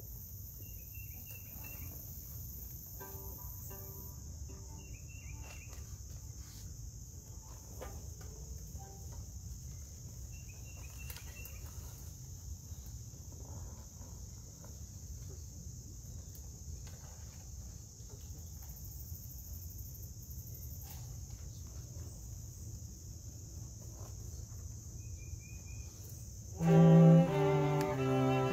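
Outdoor pause between pieces: insects keep up a steady high-pitched trill over a low background rumble, with a few faint chirps. Near the end a string quartet of violins and cello starts playing again.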